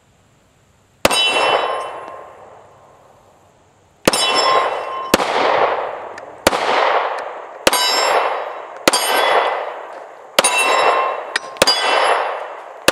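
Pistol shots from a Smith & Wesson M&P 40C in .40 S&W, each followed by a long ringing clang from a steel plate target. There is one shot about a second in, then after a pause a steady string of about seven more, roughly one a second.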